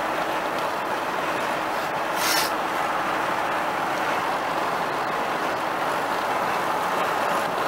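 Steady road and tyre noise heard inside a car's cabin at highway speed, with a brief hiss about two seconds in.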